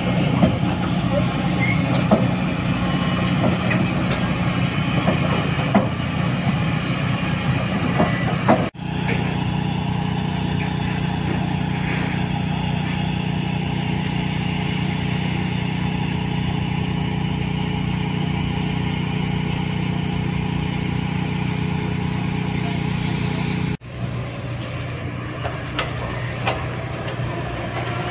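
Heavy diesel engines of dump trucks and construction machinery running steadily in a low, continuous hum, with a few sharp knocks in the first several seconds. The hum is quieter for the last few seconds.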